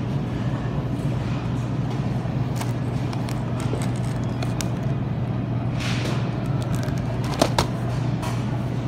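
Supermarket ambience: a steady low machinery hum with a rumble under it, with faint clinks and two sharp clicks about seven and a half seconds in.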